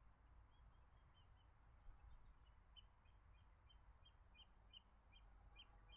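Near silence with faint outdoor birdsong: a small bird repeats a short high chirp about two or three times a second, with a few higher notes mixed in.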